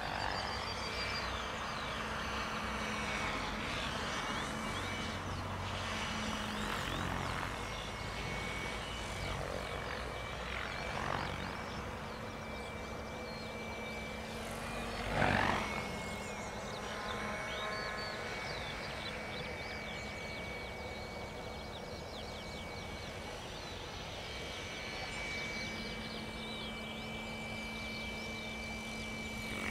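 Electric 700-size RC helicopter (Compass Chronos 700) flying 3D aerobatics at a low 1400 RPM headspeed: a steady whine of the motor and drive with the rotor blades' whoosh, rising and falling in pitch as it moves about, loudest about 15 seconds in.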